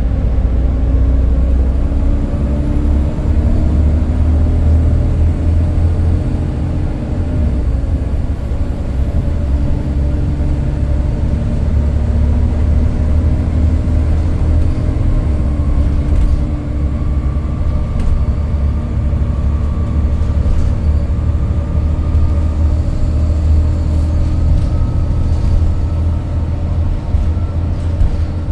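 Volvo B7TL double-decker bus under way, heard from on board: its six-cylinder diesel runs with a steady low drone whose note shifts a couple of times. A faint whine rises slowly in pitch through the middle.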